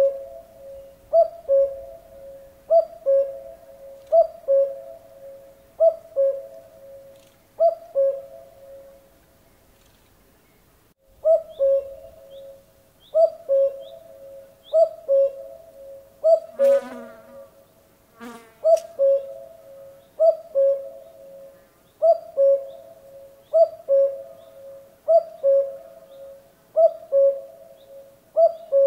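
Common cuckoo calling its two-note, falling "cu-coo", repeated steadily about once every second and a half, with a short break about ten seconds in. A brief rasping sound comes in about two-thirds of the way through.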